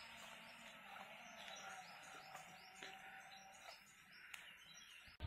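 Near silence: faint outdoor ambience, with a soft high chirp repeated about three times a second, from birds or insects.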